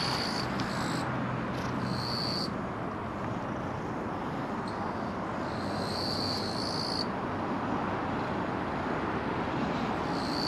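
An insect calling in high, buzzy bursts of about a second, several times, over a steady rushing background noise.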